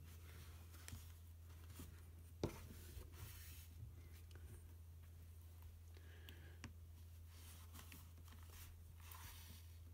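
Faint rustling and scratching of fabric and thread as layers of cloth are hand-tacked with a needle and single thread, with a few small taps, the sharpest about two and a half seconds in. A steady low hum lies underneath.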